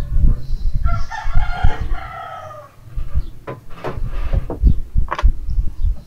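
A rooster crowing once, about a second in: one drawn-out call that falls away at the end. Dull knocks of tools and parts being handled on a workbench run under it, with a few sharp clicks in the second half.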